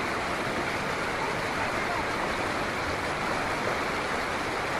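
Flash-flood water, a fast muddy torrent, rushing through a street in a steady, unbroken roar of water noise.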